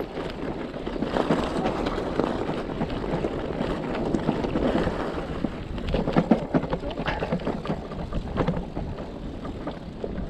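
E-bike tyres rolling over a rough gravel track, with a steady run of small knocks and rattles over wind on the microphone.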